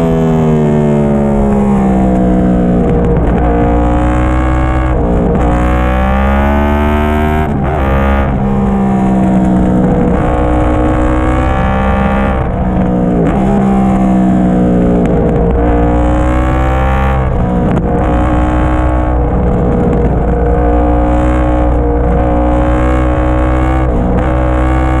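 2010 Yamaha YZF-R1's crossplane-crank inline-four, breathing through a Yoshimura slip-on muffler, under hard riding: the engine note repeatedly climbs in pitch and then drops back sharply every few seconds as the throttle is worked through the corners.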